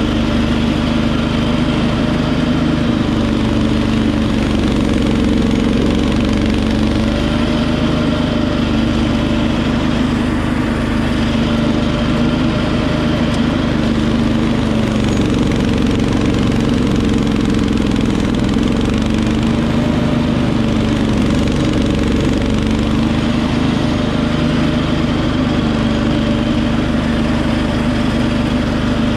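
Wheel Horse 310-8 garden tractor's engine running steadily with its front-mounted snowblower clearing heavy, dense snow. The engine pitch dips and recovers now and then as the blower takes on more snow.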